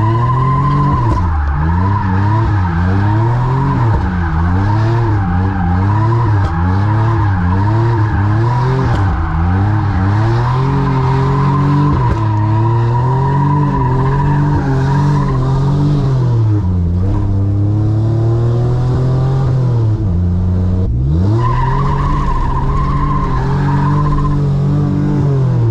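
Chevrolet Camaro with a welded rear differential doing donuts: the engine revs up and down while the rear tires squeal. The squeal drops out around the middle as the revs fall, the engine dips low and climbs again about 21 seconds in, and the squeal returns briefly near the end.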